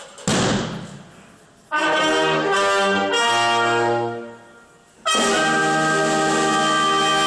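Small brass band of tuba, trumpets, horns and trombone with bass drum and cymbal. A single crash comes first and rings away. A short phrase of changing brass notes follows about two seconds in and fades, then the band comes in on a full chord held steady from about five seconds in.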